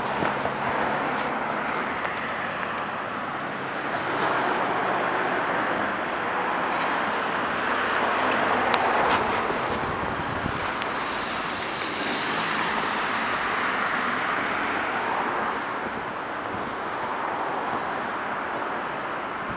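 Road traffic: cars driving past one after another, their tyre and engine noise swelling and fading several times.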